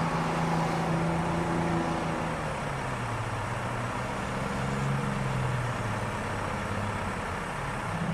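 City bus engine running steadily, its low hum dropping in pitch a few seconds in, over a steady rush of vehicle noise.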